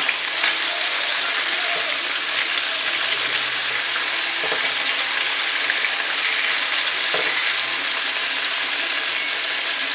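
Beef and chorizo burger patties frying in olive oil in a pan, a steady sizzling hiss, with a few faint clicks as a spatula lifts and flips them.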